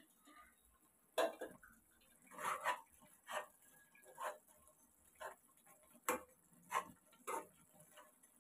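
Spatula knocking and scraping against a nonstick kadai while turning bread slices frying in it, one short sharp knock about every second.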